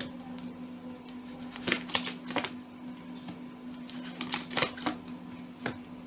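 A deck of tarot cards being shuffled by hand: irregular crisp flicks and slaps of cards, with clusters about two seconds in and again past four seconds, over a steady low hum.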